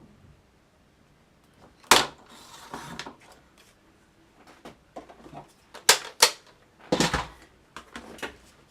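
Cardstock being cut and handled with paper-crafting tools: a few loud, sharp clicks, about four in all with the last three closer together, with rustling of card after them and lighter ticks in between.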